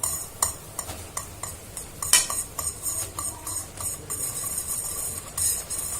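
A spoon knocking and scraping against a cooking pan in quick, irregular strokes while rice flour is stirred into boiling spiced water.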